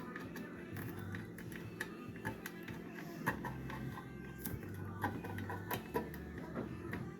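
P-38 can opener being worked around the rim of a tin can, a run of irregular metallic clicks as its blade punches through the lid a few times a second.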